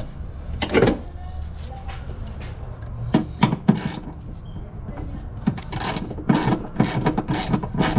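Ratchet wrench clicking in short bursts as it tightens a ground-wire ring terminal onto a body bolt, the strokes coming about three or four a second in the second half.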